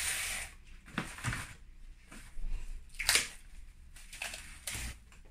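Plastic cling wrap rustling and crinkling in short irregular bursts as it is pulled and stretched over the dough, with a few sharper crackles, the loudest about three seconds in.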